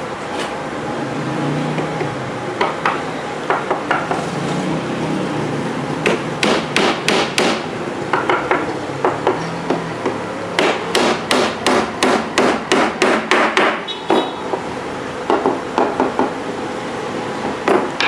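Hammer striking particleboard shelf panels in several quick runs of blows, about four a second, over a steady background hum.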